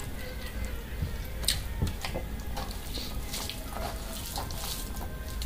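Wet, close-up eating sounds: someone chewing mutton curry and rice, with irregular lip smacks and clicks.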